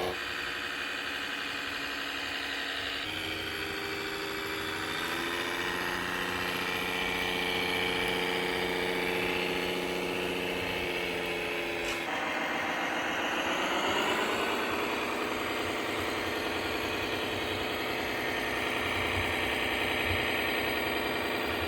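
Engine sound of an RC model vehicle, most likely from its electronic sound module, running steadily. About twelve seconds in there is a click and the engine revs up over a couple of seconds, then holds at the higher speed.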